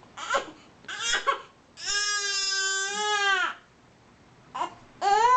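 Newborn baby crying: two short fussy cries, then one long, steady, high wail lasting nearly two seconds, and a fresh cry starting near the end.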